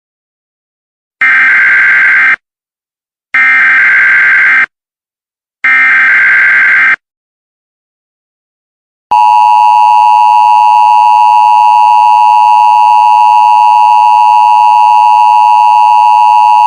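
Emergency Alert System tones: three identical short bursts of screeching digital header data, then after a pause of about two seconds a loud, steady two-tone attention signal (853 and 960 Hz) begins about nine seconds in.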